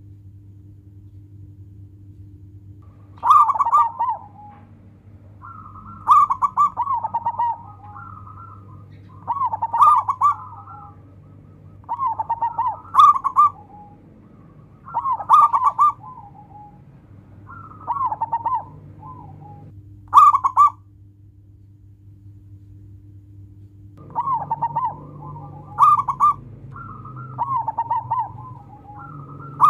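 Zebra dove (local perkutut) cooing: a series of short, rapid staccato call phrases, repeated every two to three seconds, with a faint steady low hum underneath.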